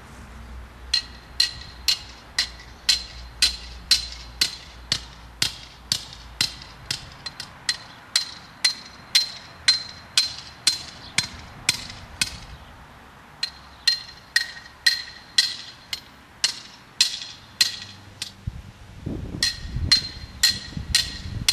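Green steel fence posts being hammered into garden soil: ringing metal-on-metal strikes about two a second, in three runs with two short breaks between posts.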